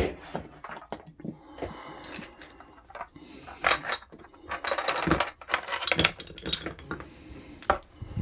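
Metal tools and padlock parts being handled and set down: irregular clinks, clicks and rattles.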